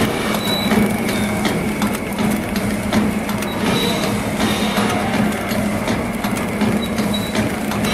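DXDJ-40II automatic sauce sachet packing machine running, with a steady hum under a busy clatter of small clicks.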